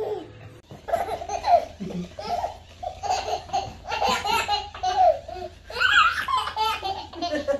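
A baby laughing hard, in a long run of short, high-pitched bursts.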